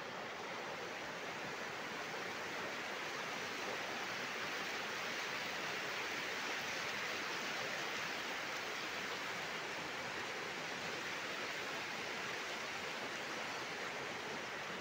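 Muddy floodwater of a river in spate rushing and churning, a continuous even rushing sound that swells slightly midway.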